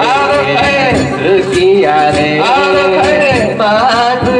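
A voice singing a danjiri hiki-uta (float-pulling song), with long held notes that bend and slide in pitch.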